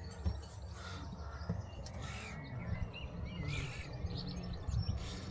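Birds calling outdoors: three short harsh calls about two, three and a half and five seconds in, with some brief whistled chirps between them, over a steady low rumble of wind on the microphone.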